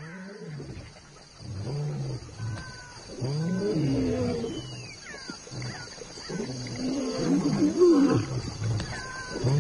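Lions growling: a series of low calls about a second each, rising and falling in pitch, growing louder toward the end.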